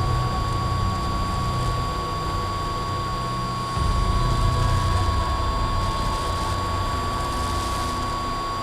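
FPV quadcopter in flight, heard through its onboard camera: a steady high whine over a low wind-like rumble that gets louder about four seconds in.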